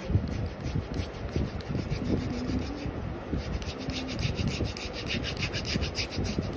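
A hand-held foot file scraping back and forth across the skin of a heel, filing off dead skin in quick repeated strokes, several a second. The strokes grow crisper about halfway through.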